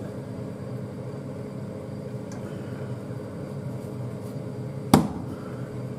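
Chopsticks stirring pork and potato pieces in a stainless steel saucepan on an induction hob, over a steady kitchen hum with a low held tone. About five seconds in, the chopsticks clack once against the pan.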